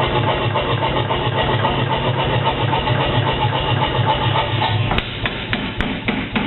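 Power hammer pounding steel plate in a fast, steady run of blows, several a second, drawing the plate out. About five seconds in the blows stop, leaving a few sharp clicks.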